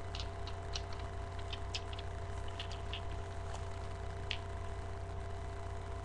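Small irregular clicks and taps of nail polish bottles with plastic skull-shaped caps being handled close to the microphone, over a steady low electrical hum from the webcam microphone.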